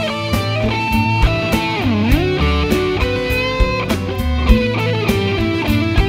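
Electric guitar playing a melodic lead over a backing with a steady bass line and a regular beat. About two seconds in the guitar swoops deeply down in pitch and back up.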